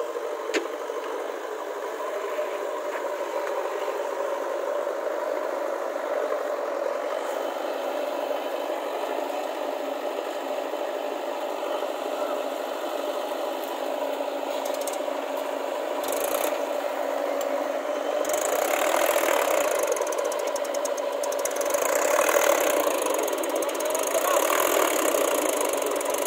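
Diesel engines of a Mahindra tractor and a JCB 3DX backhoe loader running, with metallic rattling that grows louder in the second half.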